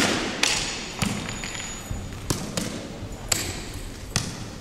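Bo-shuriken (straight spike throwing blades) striking a wooden-framed target board, about seven sharp knocks at irregular intervals, the first the loudest, each echoing in a large hall.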